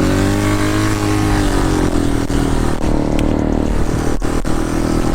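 Dirt bike engine running under way, its pitch rising and falling over the first couple of seconds as the throttle changes, then holding steady.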